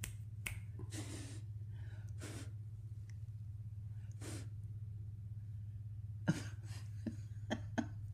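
Short breathy puffs and exhales, then a handful of sharp clicks, the loudest about six seconds in, from a baby being bounced upright by an adult and the adult holding her, over a steady low hum.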